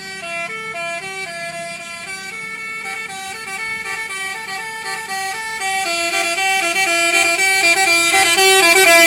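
Bus 'telolet' basuri multi-tone horn playing a quick stepped melody, growing steadily louder.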